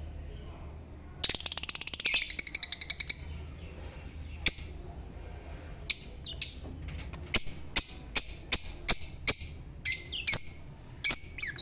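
Lovebirds chirping: a fast run of loud, high chattering chirps about a second in, then single sharp chirps that come more often near the end, a few sliding down in pitch.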